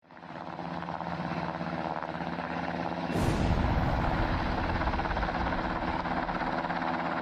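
Helicopter sound effect: a steady rotor and engine noise that fades in, with an explosion blast about three seconds in.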